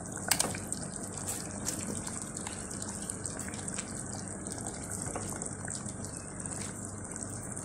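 Couscous broth simmering in a pot on a gas stove: a steady, watery hiss. A few light knocks and splashes come as chunks of red pumpkin go into the pot, the sharpest just after the start.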